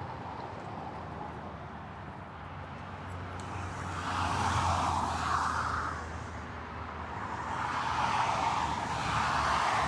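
Rocky Mountain Construction roller coaster train running along the track on an empty test run. Its noise grows louder about four seconds in and swells again near the end as it passes.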